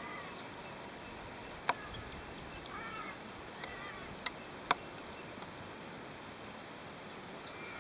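Feral goats bleating faintly, a few short wavering bleats in the first half, over a faint steady hiss. Three sharp clicks stand out briefly.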